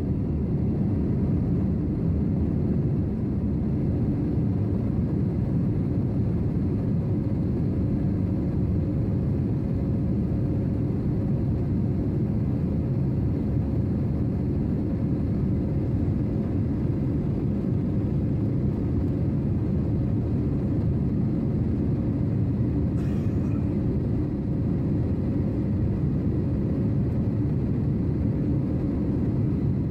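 Passenger airliner in flight: a steady low rumble of engine and airflow noise with a faint even hum above it. A faint short click about three quarters of the way through.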